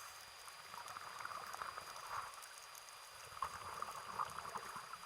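Faint underwater bubbling and crackling in two spells of about two seconds each, with a thin steady high whine.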